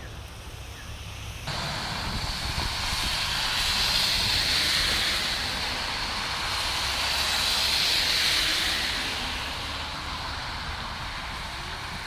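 Passing vehicles, their tyres hissing on a wet, slushy road; the hiss comes in suddenly about a second and a half in, swells twice, then eases off.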